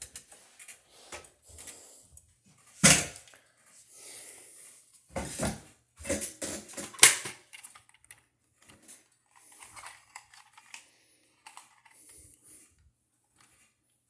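Fire alarm control panel door being handled and shut: a series of clicks and knocks, the loudest about three seconds in and just after seven seconds in.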